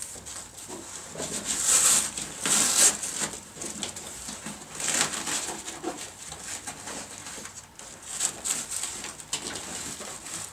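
Fabric and a padded shelf panel rustling and scraping in irregular bursts as the panel is pushed and worked into a soft-sided bag, with its Velcro-edged sides rubbing against the bag's walls.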